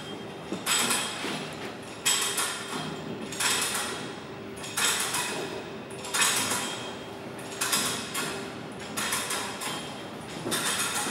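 The pleated fabric flotation screen of a Strv 103C tank being folded down, its stiff pleats rustling and scraping in about eight regular pushes, one every second and a half or so.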